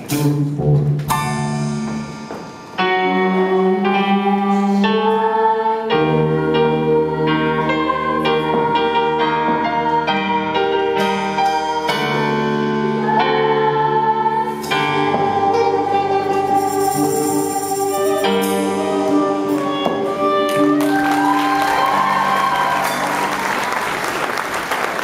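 Live music played as held chords that change every second or so, with applause swelling in over the last few seconds.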